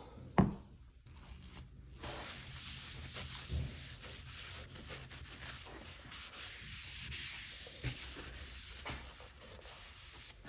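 Folded paper towel rubbing mineral oil into a bamboo cutting board: a steady, hissing scrub that starts about two seconds in. A single short knock comes about half a second in.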